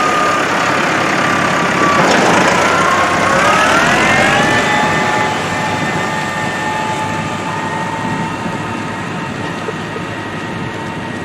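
Grain grinder running steadily, grinding feed; its pitch sags about two seconds in, then climbs back and holds steady.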